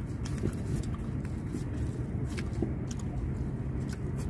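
Steady low rumble of road traffic, with faint scattered clicks and crunches of chewing and eating by hand.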